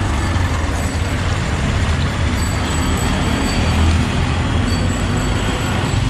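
Fritters deep-frying in oil on a wide flat street-stall pan, a steady sizzle under continuous street traffic noise.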